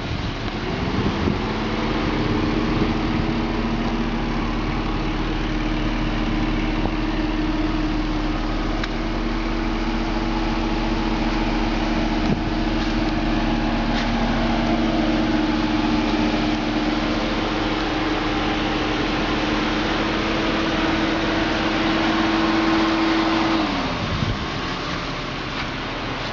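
A motor or engine runs with a steady hum. It winds up in pitch about a second in, holds level, and winds down shortly before the end.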